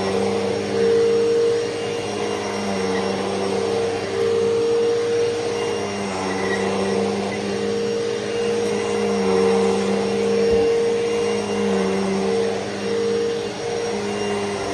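Hoover Elite Rewind upright vacuum cleaner running steadily while vacuuming, a constant motor hum whose loudness swells and dips slightly. There is one brief low thump about ten seconds in.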